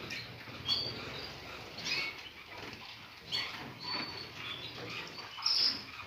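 Small aviary songbirds fluttering their wings in several short bursts, with a few brief high chirps.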